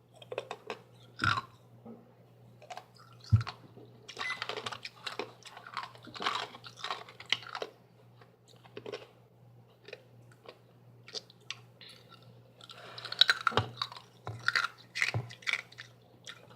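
Close-up chewing and crunching of ice in the mouth, irregular crunches coming in clusters, over a steady low hum.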